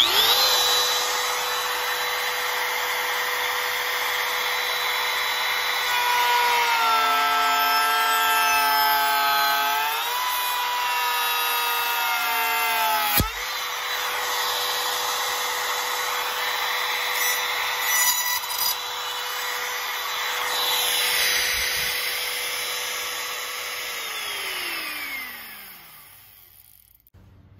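A corded handheld power tool's electric motor starts at once and runs at a steady high whine, sagging in pitch under load for a few seconds in the middle and again briefly after a sharp click, then winding down with a falling pitch near the end.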